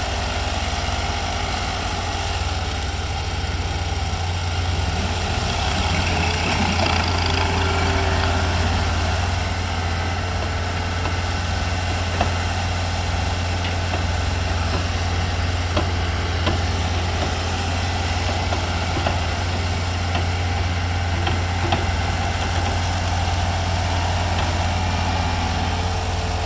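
Heavy equipment at a sand-screening site running steadily, a deep engine drone with a constant low hum, rising slightly a few seconds in; a few faint sharp clicks cut through it later.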